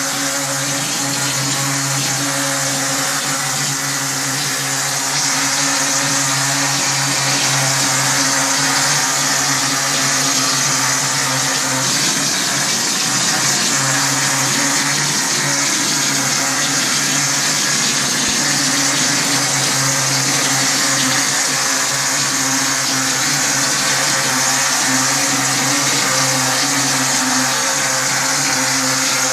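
Plastering machine running: a steady motor hum under a strong hiss, getting a little louder about five seconds in.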